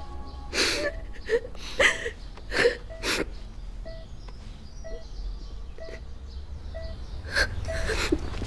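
A young woman sobbing, with sharp gasping breaths in the first few seconds and again near the end. Under it a patient monitor gives short soft beeps about once a second.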